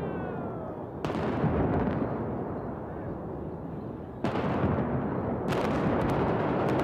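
Pyrotechnic explosions and jet-fuel fireballs: three sudden booms, about a second in, about four seconds in and again about five and a half seconds in, each trailing off in a long rumble.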